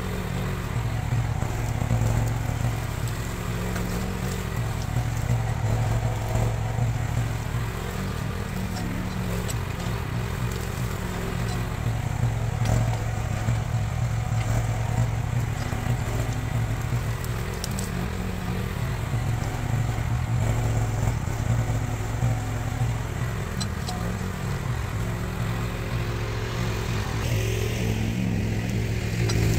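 Diggit EM15 mini excavator's engine running steadily under work, with a few brief clicks and cracks over it.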